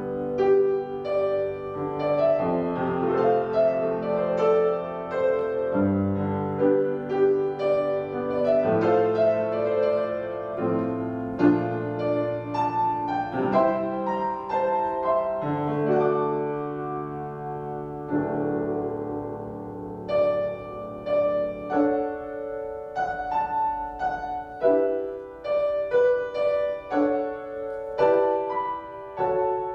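Solo piano playing slow chords with held bass notes, turning to lighter, repeated chords about two-thirds of the way through.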